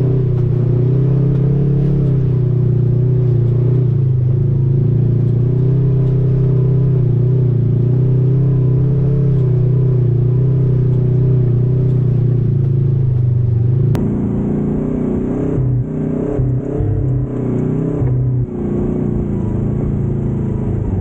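Side-by-side UTV engine running steadily under way on a dirt trail, a constant drone. About two-thirds of the way in the sound changes abruptly to an uneven engine note that dips and rises with the throttle.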